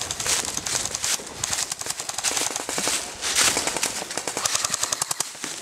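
Airsoft electric rifles firing rapid full-auto bursts, the fastest run about two to three seconds in, over the crunch of footsteps in dry fallen leaves.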